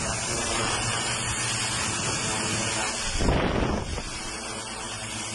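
Large multirotor drone hovering close overhead, its propellers giving a steady hum under a rushing hiss of rotor wash on the microphone. A louder rush comes about three seconds in, then it settles a little lower.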